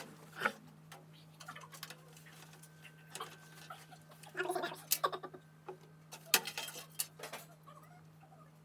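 Scattered sharp clicks and knocks of computer parts being handled and fitted into a PC case as the motherboard goes in, over a steady low hum.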